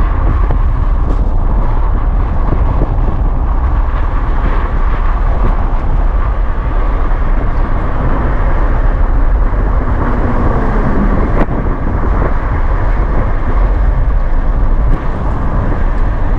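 A car driving on the road: a loud, steady rumble of engine, tyres and wind, heaviest in the deep low end.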